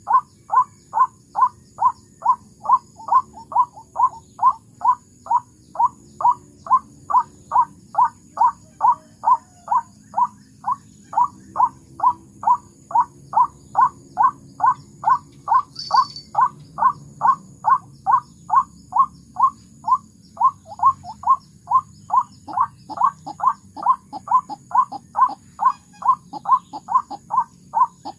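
White-breasted waterhen calls repeated in a fast, very even series of short notes, about two to three a second, a lure call for trapping the birds. A brief high squeak cuts in about halfway through.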